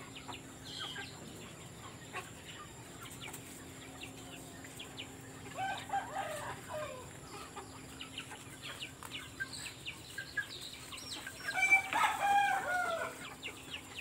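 Chickens clucking and calling in their pens, with a rooster crowing about six seconds in and again, louder and longer, near the end.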